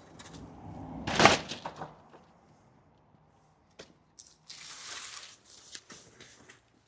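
Brief handling noises: a loud rustle about a second in, then a few light clicks and a softer rustle around five seconds.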